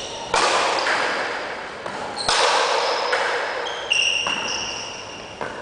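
A pelota paleta rally: the rubber ball is struck by wooden paddles and smacks the frontón wall in four sharp hits, about one and a half to two seconds apart, each ringing out with a long echo in the large hall. Short high squeaks come between the later hits.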